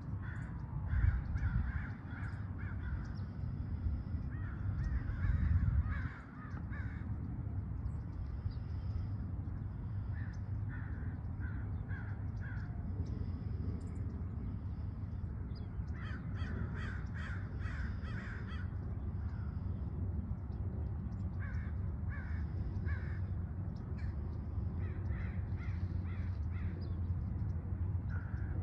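Crows cawing in repeated runs of several quick caws, with pauses between runs, over a steady low rumble.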